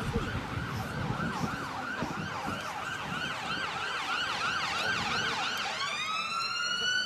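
Emergency vehicle siren sounding in a fast yelp of about three rises and falls a second, switching about six seconds in to a slow rising wail.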